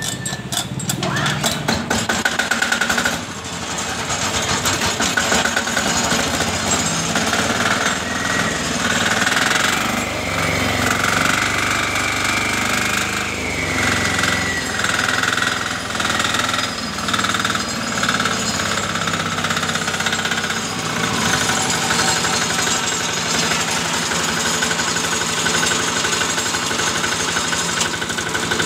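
Single-cylinder engine of a walk-behind concrete and asphalt cutter being started by its starter at the very beginning, then running steadily.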